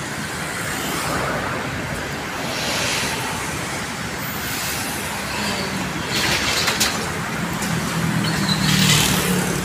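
Cars passing one after another on a multi-lane city road, each pass swelling and fading over a steady traffic hum. A low engine drone joins about halfway through.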